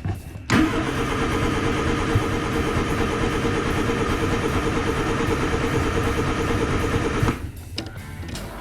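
Vehicle engine running loudly and steadily, cutting in suddenly and cutting off about seven seconds later, over background music.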